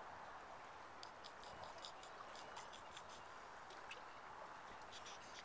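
Quiet outdoor ambience by open water: a soft, steady hush with faint, irregular high ticks coming in small clusters.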